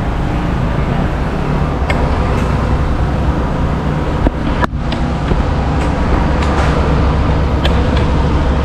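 Suzuki Burgman Street EX 125 scooter's single-cylinder engine idling steadily after its quiet start, with a few faint clicks.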